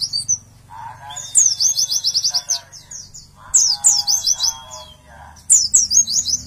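Caged white-eye (pleci) singing in repeated bursts about every two seconds. Each burst is a few high, falling notes that run into a fast trill, with a lower warbling beneath.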